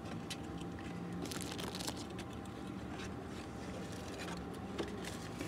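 Close-up eating sounds: chewing and crunching into crispy Nashville-style fried chicken sandwiches, with the paper wrappers crinkling, as a scatter of small irregular crackles and clicks.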